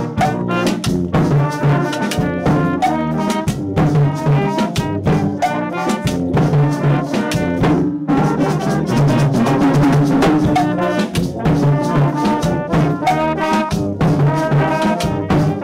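A brass band playing a lively piece, with full low brass under the melody and regular percussion strokes keeping the beat.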